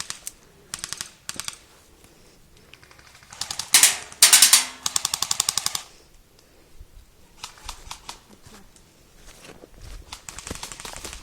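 Airsoft guns firing rapid full-auto bursts of sharp, evenly spaced clicks: two short bursts in the first second and a half, the loudest and longest bursts about four to six seconds in, then fainter, more distant firing near the end.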